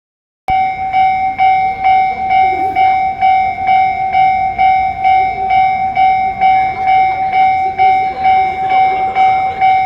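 Japanese railway level-crossing warning bell ringing, a loud electronic clang repeating about twice a second and starting about half a second in: the crossing's alarm that a train is approaching.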